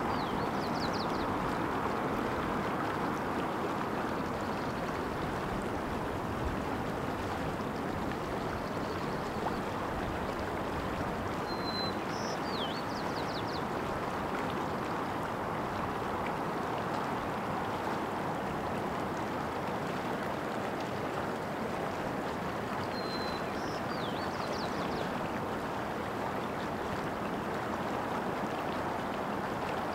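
Shallow mountain stream water running steadily over rocks. A bird calls three times, about twelve seconds apart: each call is a short high note, then a quick falling note and a few fast chips.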